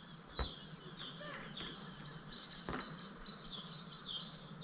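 Small songbirds singing and chirping, with quick runs of high repeated notes about two and three seconds in. Two faint knocks are heard among the song.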